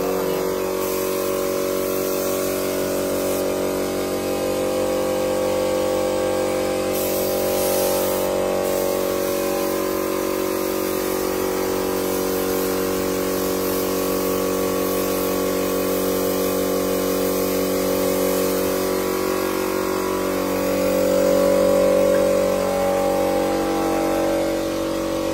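Compressed-air spray gun hissing as it sprays a coat of finish, over the steady hum of the air compressor. The hiss swells in a couple of stretches as the trigger is pulled harder.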